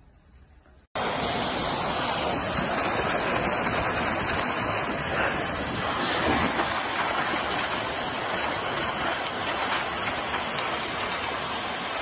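Hair dryer running, a steady rush of blown air and motor noise that starts abruptly about a second in.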